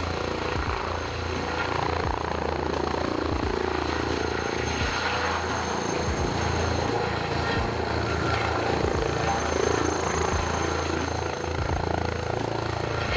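Airbus ACH160 twin-engine helicopter hovering low, with a steady rotor thrum and a high, constant turbine whine over it.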